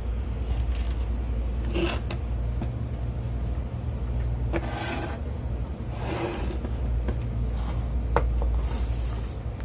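Rubbing and scraping handling sounds, a few short scrapes and one sharp click, as wires and connectors are fitted to an air-conditioner control board, over a steady low hum.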